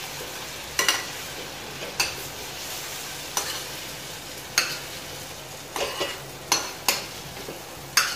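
Steel spoon scraping and clinking against a stainless steel kadai while scooping fried vegetables into a steel mixer-grinder jar: a clink about every second, coming quicker near the end, over a faint steady sizzle of hot oil.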